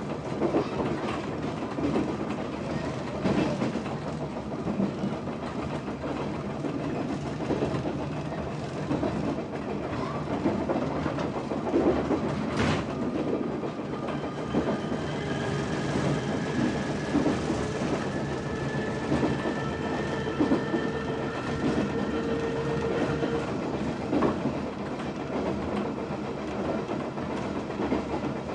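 Meitetsu 3400 series electric train running, its wheels clacking over rail joints. From about halfway in, the whine of its nose-suspended traction motors rises slowly in pitch, and there is one sharp click about twelve seconds in.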